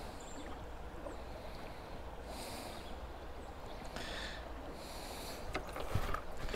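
Faint, steady sound of stream water, with two short hisses in the middle. Near the end come several light clicks and a soft knock as the fish and kayak are handled.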